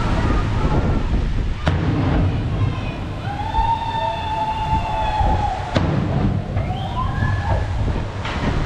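Wind buffeting the microphone with a steady low rumble, over which a wavering, siren-like pitched tone is held for a couple of seconds before cutting off sharply.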